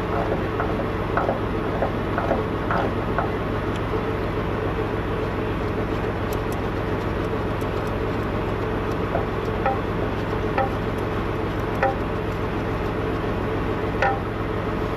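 Steady low hum of an idling diesel truck engine, with scattered light clicks and clinks of hand tools on metal as the fan clutch hub nuts are worked off.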